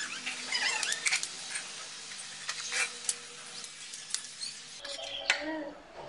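A metal spoon clinking and scraping on a steel plate in a run of short sharp clicks, mixed with close chewing and mouth noises of someone eating.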